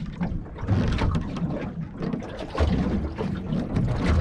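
Wind buffeting the microphone in uneven gusts, with water lapping at the hull of a small boat at sea.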